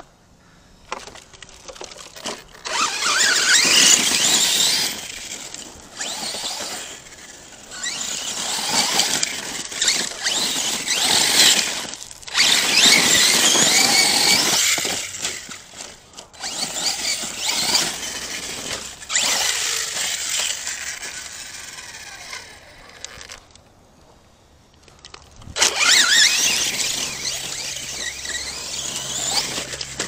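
ARRMA Kraton 6S RC truck's brushless electric motor whining up and down in pitch through repeated bursts of throttle, mixed with the hiss of its tyres in dirt and gravel. There is a short lull about three-quarters of the way through.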